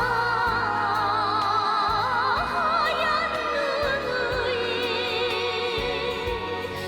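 North Korean pop song: a singer holds long notes with heavy vibrato over a bass line that steps from note to note about twice a second.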